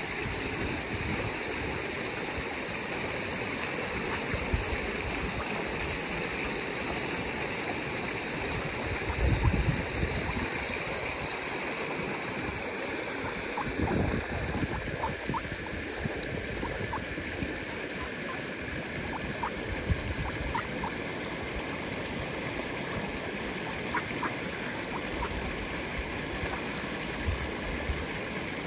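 Shallow river water rushing steadily over a riffle, with a few faint short high sounds in the second half.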